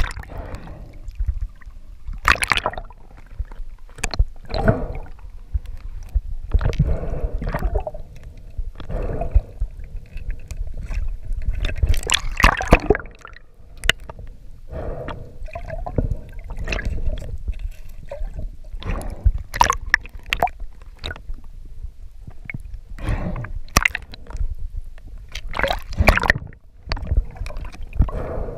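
Sea water sloshing and gurgling around a camera as it breaks the surface and goes under again, with irregular splashes and rushes of bubbles over a low rumble.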